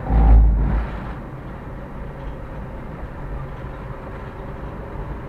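Car driving on an open road, heard from inside the cabin: steady engine and tyre noise. A brief, deep rumble in the first second is the loudest moment.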